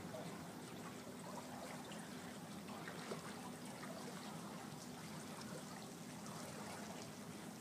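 Water lapping and trickling softly around a drifting boat, with small scattered drips and ticks over a faint steady low hum.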